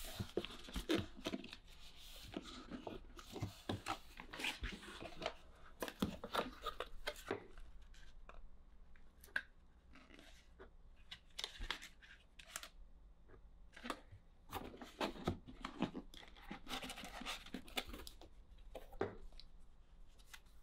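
Cardboard packaging and paper wraps being handled: irregular rustling, sliding and sharp taps of the iMac box's cardboard inserts as the power adapter and cables are lifted out.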